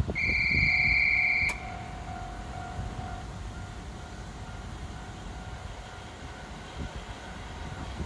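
A worker's whistle blown in one trilling blast of about a second and a half, a safety warning at the level crossing. After it, the crossing alarm rings faintly and repeatedly over a low rumble of trains.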